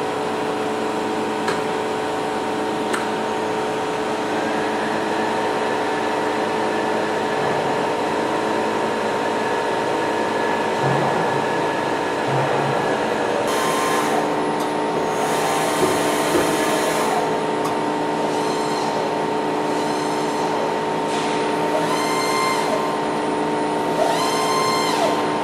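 Novar CNC bed milling machine running: a steady hum made of several tones, and from about halfway in, a series of short whines that rise and fall in pitch.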